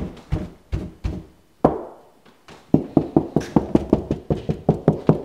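Knocking by hand on drywall to find the studs behind it: a few spaced knocks, then a lone one, and from about three seconds in a fast, even run of about six knocks a second.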